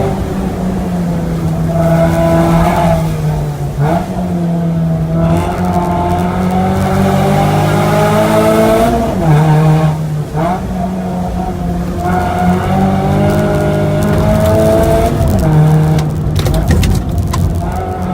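A Mazda 3's 2.0 L four-cylinder engine is pulled hard through the gears on a timed hillclimb run. The revs climb, then drop sharply at each shift, about 4, 10 and 16 seconds in, and the tyres squeal at times through the corners.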